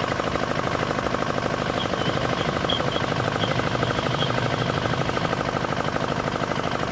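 D10 single-cylinder diesel engine running steadily with a fast, even firing beat, firing crisply now that its hard-starting fault has been fixed. A few faint high chirps come about two to four seconds in.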